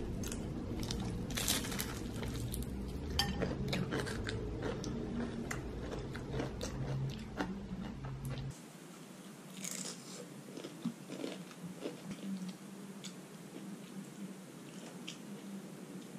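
Close-up crunching and chewing of crispy fried food. The crunches come thick and fast for about the first eight seconds, then turn sparser and softer.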